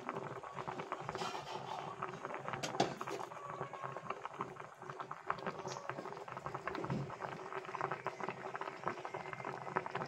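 Fish broth boiling in a cooking pot, a dense, steady crackle of small bubbles bursting.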